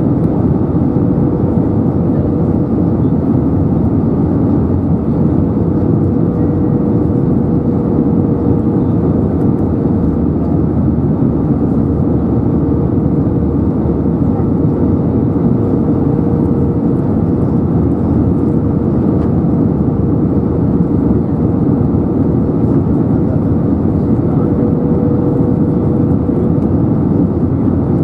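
Steady cabin roar of an Airbus A320neo on approach, heard from a seat over the wing: the Pratt & Whitney PW1100G geared turbofan engines and airflow over the wing with flaps extended, with a faint steady tone running through it.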